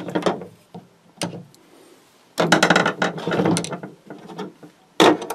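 DeWalt screwdrivers being picked up and set down on a tabletop, their handles and steel shafts knocking and clattering against each other and the table. There is a single knock about a second in, then a quiet gap, then a longer run of clatter from about halfway, and one more knock near the end.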